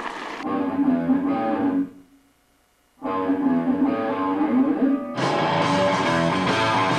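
Electric guitar playing a picked riff, which breaks off for about a second and then comes back, sounding fuller from about five seconds in.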